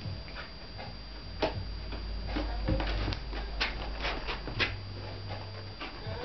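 Indo Board balance board rocking on its roller over carpet: a low rolling rumble broken by irregular sharp clicks and knocks as the deck shifts on the roller.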